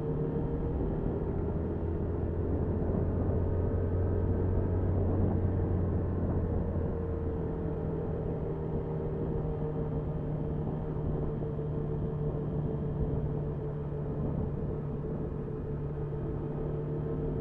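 Motorcycle engine running steadily under way, over road and wind noise, picked up by the bike's dashcam. About a second in, the engine note drops lower, and it comes back up about seven seconds in.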